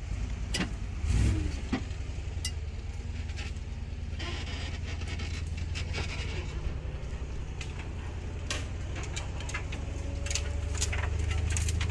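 Heavy truck's diesel engine running steadily, with scattered knocks and clanks and one louder thump a little over a second in. Near the end the engine note rises slightly.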